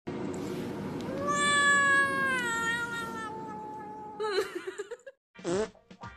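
A domestic cat gives one long drawn-out meow that slowly falls in pitch, then a few short wavering calls.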